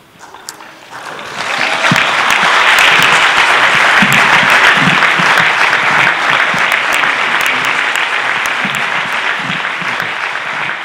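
Audience applauding. The clapping starts about a second in, swells quickly, then slowly tapers off.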